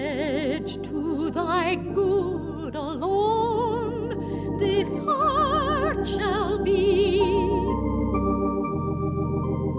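A woman's soprano sings a slow love song with a wide vibrato over held organ chords. The voice stops about three-quarters of the way through, and the organ goes on alone.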